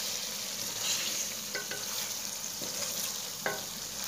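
Egg and potato curry masala sizzling in a metal pan as a wooden spatula stirs it, with a few light knocks of the spatula against the pan, the loudest about three and a half seconds in.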